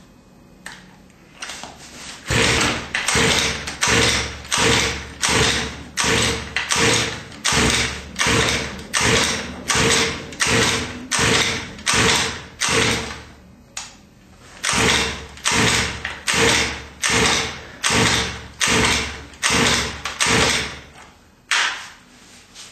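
Recoil pull-starter of a 29cc two-stroke engine being yanked over and over, about three pulls every two seconds for nearly twenty seconds, with the engine cranking but never firing: it won't start after a head kit was fitted.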